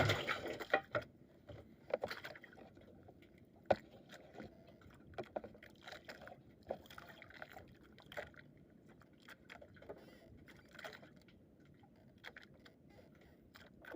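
Irregular clicks, knocks and scrapes of fishing tackle and the catch being handled close to the microphone, with a sharp knock right at the start.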